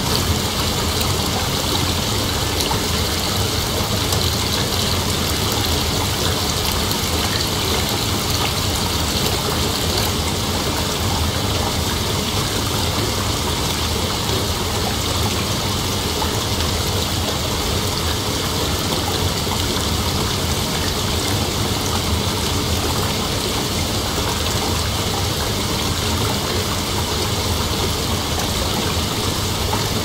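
Heavy rain falling in a steady, even downpour, with no thunder.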